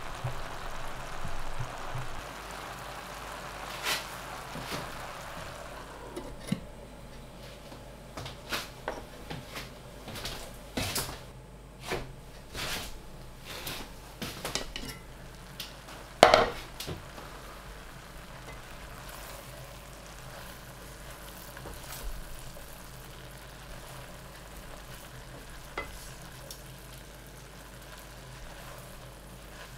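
Kale and chickpea curry cooking in a stainless steel pan: a soft sizzle, a run of knocks and clinks of utensil and pan with one loud clink about sixteen seconds in, then a quieter steady simmer with a few taps.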